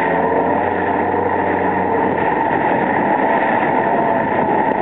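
Kawasaki jet ski engine running at a steady cruising speed, mixed with the rush of water under the hull, heard from aboard the moving craft.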